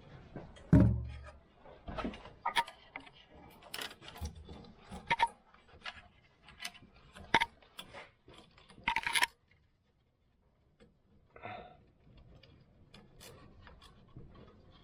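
Scattered clicks, taps and rubbing of hands working on a truck's wiring, strapping a loose connector in place with a zip tie, with one heavy thump about a second in and a short rasp near the middle.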